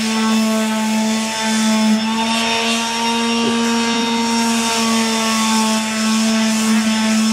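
Corded electric palm sander running steadily while pressed to a wall, sanding the wall surface: a steady motor hum with a gritty scrubbing noise over it, the pitch dipping slightly a few times.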